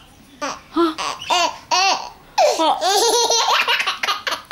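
Baby boy laughing: a run of short, quick giggles about a third of a second apart, then a longer peal of laughter from about halfway through.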